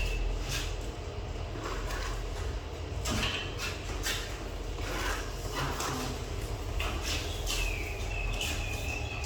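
Metal door parts being handled in a workshop: irregular scraping and knocking of metal on metal, with a thin high squeal from about seven and a half seconds in, over a steady low hum.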